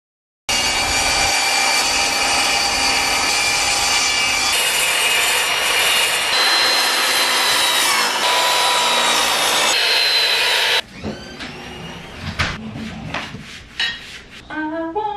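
Electric compound miter saw running and cutting through a wooden board: a loud, steady whine with the rasp of the blade in the wood for about ten seconds, cutting off suddenly. Softer knocks and thumps follow.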